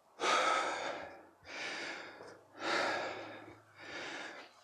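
A man breathing hard and heavily, four deep breaths about a second each: out of breath right after a 30-second high-intensity interval.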